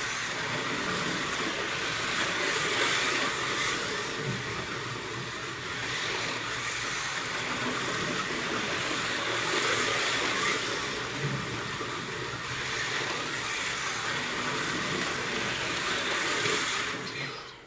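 Several scratch-built 1/32 scale slot cars lapping a track together, their small electric motors whining and buzzing in a steady mix. The sound drops away sharply near the end.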